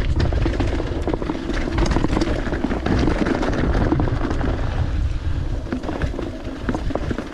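Mountain bike rolling over rocky trail: rumbling tyre noise with the bike rattling and clattering in many quick knocks over the rocks, and wind buffeting the microphone.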